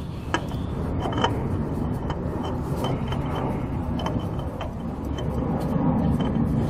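Steady low rumble of a nearby road vehicle, growing a little louder near the end, with a few faint clicks.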